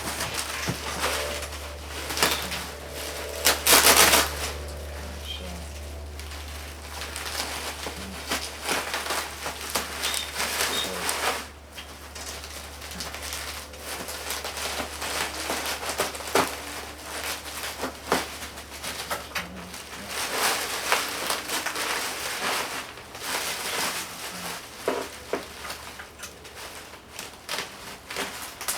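Bubble wrap and plastic packing being handled and pushed into a cardboard box around a boombox: irregular crinkling and rustling throughout, with a louder burst of crinkling about four seconds in.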